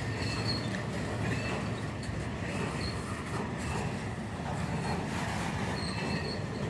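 Norfolk Southern freight train rolling slowly as it stops in the yard: a steady rumble of the cars, with short high-pitched squeals from the wheels and brakes coming and going.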